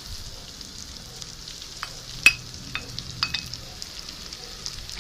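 Bell peppers and onion sizzling in hot oil and butter in a pan, with a steady high hiss. A cooking utensil clicks against the pan a few times while stirring, the loudest knock, with a brief ring, about two seconds in.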